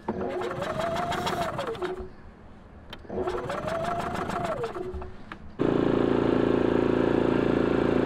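Two pulls on a portable generator's recoil starter cord: each time the engine whirs up and back down without catching. About five and a half seconds in, a loud, steady engine drone cuts in abruptly.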